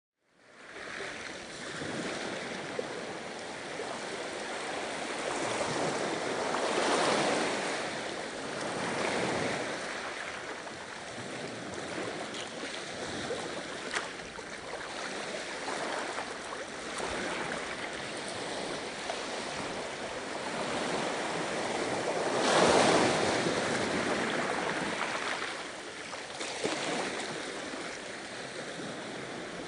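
Ocean waves washing onto a shore in a continuous surf, swelling and receding, with the loudest surges about 7 and 9 seconds in and again around 23 seconds.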